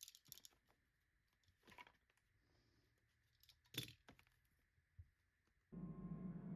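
Faint scattered clicks and rustles of small objects being handled, the loudest about four seconds in. Near the end, music made of sustained ringing tones starts.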